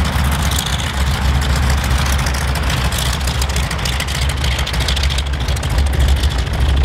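Ford Tri-Motor's three radial engines running steadily with a deep, low drone as the plane taxis.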